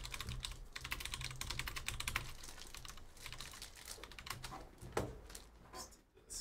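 Typing on a computer keyboard: a fast run of keystrokes for about two seconds, then slower, scattered key presses, with one sharper click about five seconds in.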